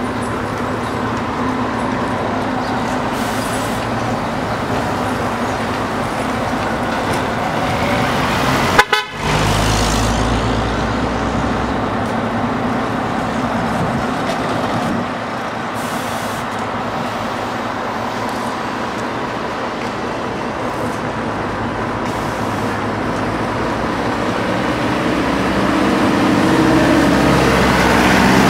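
Street traffic: vehicle engines running with car horns tooting. A single sharp knock about nine seconds in, and the traffic noise grows louder near the end as a minibus passes close by.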